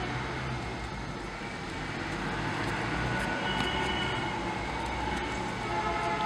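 Steady background rumble and hiss, like vehicle noise, with a few faint high thin tones about halfway through.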